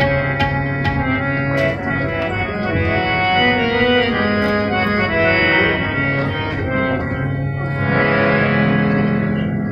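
Harmonium playing a slow phrase of long held reed notes in Raag Bahar, the pitch moving from note to note. A few scattered tabla strokes sound in the first two seconds and once more around four and a half seconds.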